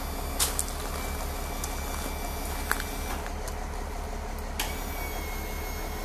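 Braun wheelchair lift on a school bus folding its platform up: a steady low hum of the lift's power unit with several sharp metallic clicks and clanks, the loudest about half a second in.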